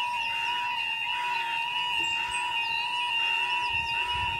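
Level crossing warning alarm sounding, a steady two-tone note with a pulse repeating about twice a second, while the half barriers lower. Birds chirp faintly over it, and a low rumble comes in near the end.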